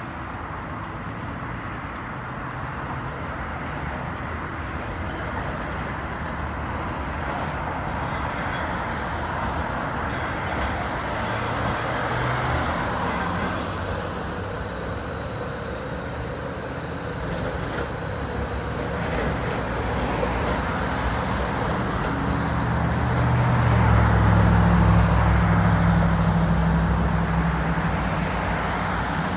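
Street traffic with an E-class low-floor tram rolling past, a high steady whine holding for several seconds around the middle as it goes by. Near the end, cars passing close give the loudest part, a low rumble.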